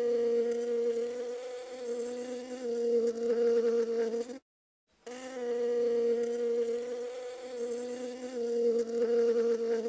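Honeybees buzzing: a steady, even hum, heard twice with a brief silent gap about four and a half seconds in.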